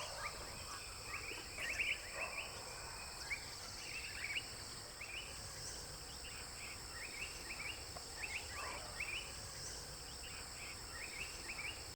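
Forest ambience: insects trilling steadily on two high pitches, with many short, rising bird chirps scattered throughout.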